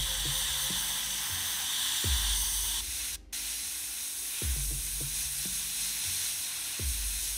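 Gravity-feed airbrush spraying paint, a steady hiss of air, broken briefly about three seconds in, over background music with a slow, low beat.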